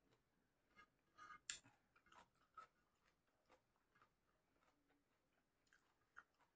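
Near silence with faint, irregular clicks and crunches of a person chewing and eating. They bunch together between about one and two and a half seconds in.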